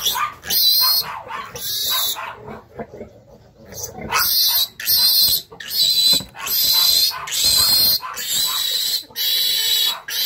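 A piglet squealing in a string of short, shrill, piercing cries, with a pause of about two seconds a couple of seconds in. These are the protest squeals of a piglet being handled for its iron injection.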